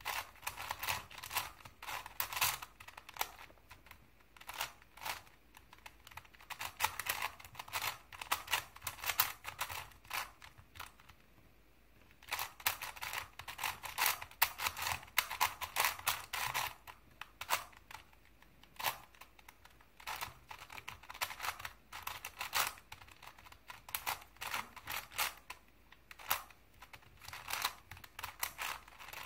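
Plastic layers of a Crazy 3x3 Plus Mars puzzle cube being turned by hand, in quick runs of clicking and clacking with a brief pause near the middle.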